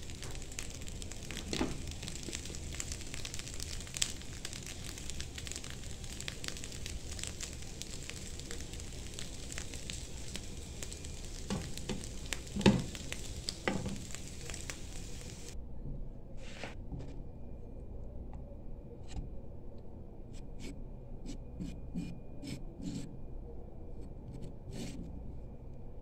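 Tapioca starch cooking in a hot nonstick frying pan on a gas stove: a steady hiss with light crackling and a few metal spoon knocks against the pan, the loudest about halfway through. About two-thirds of the way in the hiss stops abruptly, leaving a series of light spoon clicks and taps.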